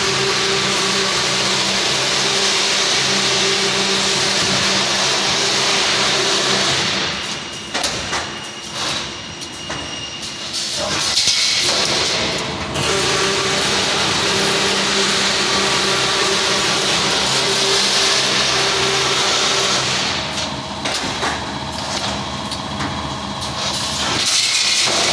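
GTW 4-12 automatic stirrup bending machine for deformed rebar running: a steady machine hum and whir as it feeds and bends bar. The sound goes quieter and uneven twice, about seven to twelve seconds in and again from about twenty seconds.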